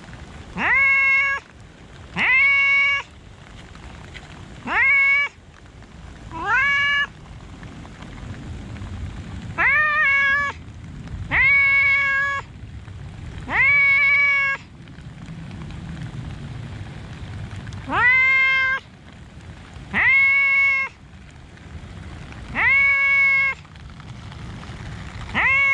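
Grey tabby-and-white cat meowing over and over: about eleven loud, drawn-out meows, each rising at the start and then held on one pitch, one to three seconds apart with a longer pause near the middle. These are insistent calls for attention.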